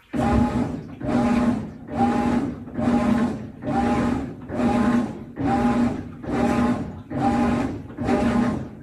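Washing machine agitating: the motor hums in short strokes a little over once a second as the agitator swings back and forth, starting abruptly.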